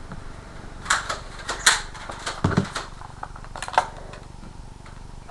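Sharp plastic clicks and knocks from Nerf toy blasters being handled, scattered irregularly over a few seconds, with one duller thud about two and a half seconds in.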